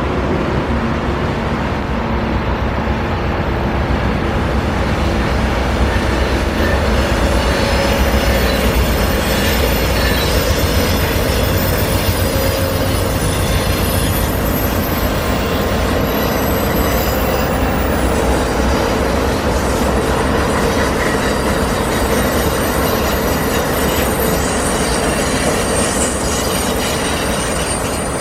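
Amtrak California Zephyr passenger train passing: a steady heavy rumble of locomotives and rolling cars, with high-pitched wheel squeal coming and going from about a third of the way in.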